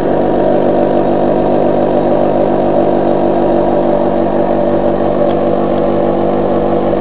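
Model single-acting oscillating steam engine (9 mm bore, 18 mm stroke) running steadily at about 3,000 rpm with no load.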